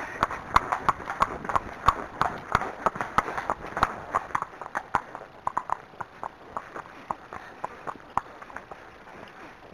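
Horse's hooves clip-clopping on a tarmac lane in an even beat of about three strikes a second. The strikes grow softer and die away near the end as the horse moves onto the grass verge.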